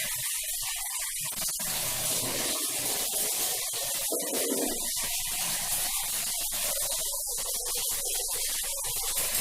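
Running water hissing steadily, as from a shower or tap.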